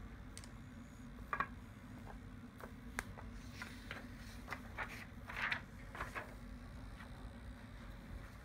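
A sheet of drawing paper being handled, taken off a pen plotter's bed and held up: faint scattered rustles and light taps over a low steady hum.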